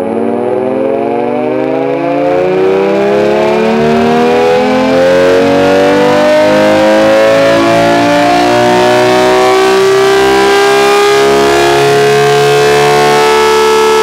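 Dual-tone electric air raid siren, its motor fed through an inverter, winding up in a loud rising wail that levels off into a steady tone about halfway through.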